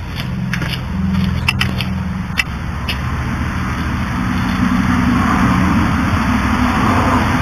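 Homemade three-cylinder, two-plate eccentric compressed-air engine running steadily under load, pulling a trailer of about 525 pounds. A few sharp clicks come in the first three seconds, and a hiss grows louder from about halfway.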